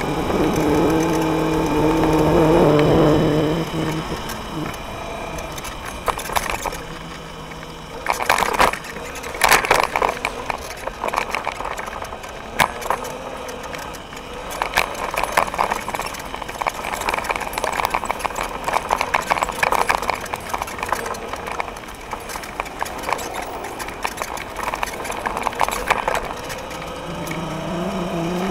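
Electric scooter riding: a steady motor hum at first, giving way about four seconds in to irregular rattling and knocking as the scooter runs over a rough path, and the steady hum returns near the end.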